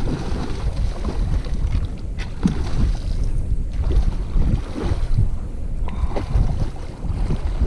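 Wind buffeting the microphone in gusts, with water splashes from a hooked fish thrashing at the surface.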